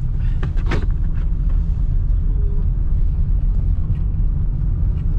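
Steady low road and engine rumble of a car driving at road speed, heard inside the cabin. A brief tap or knock sounds once, under a second in.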